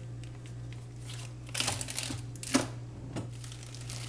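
A clear plastic food container being handled and pulled from refrigerator shelves: a rustle of plastic about one and a half seconds in, then a couple of sharp clicks, over a steady low hum.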